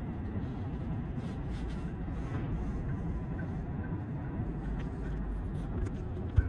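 Steady low rumble of a train running on the tracks.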